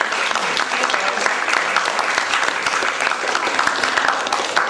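Theatre audience applauding, a dense run of clapping with voices calling out among it.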